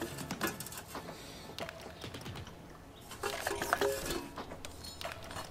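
Irregular light clicking and plastic rattling from a hand-held vacuum bleeder being worked to bleed a clutch line, louder with some short squeaks about three seconds in.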